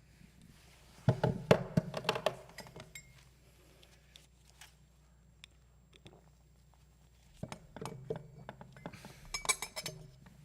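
Scattered knocks and clinks in two clusters, the first about a second in and the second near the end, over a faint low hum.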